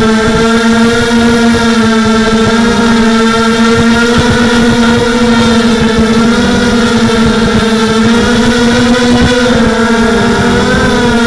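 Tarot Robocat 280 FPV quadcopter's four brushless motors and propellers whining steadily, heard loud through the onboard camera's microphone. The pitch wavers a little with throttle changes about six seconds in and again near the end.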